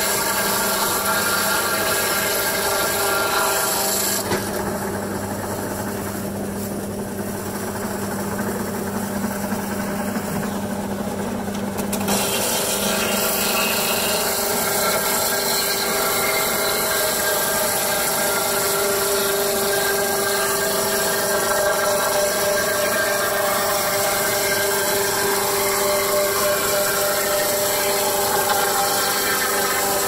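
Sawmill machinery running: a saw cutting wood over a steady mechanical hum. The high sawing hiss eases off between about four and twelve seconds in, then picks up again.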